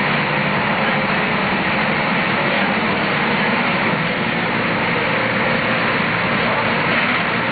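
A bus's engine and road noise heard from inside the bus while it drives, a steady rumble that does not change.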